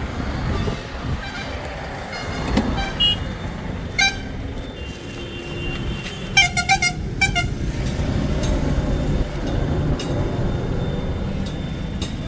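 Road traffic rumbling past, with a vehicle horn giving a quick run of short toots about six seconds in.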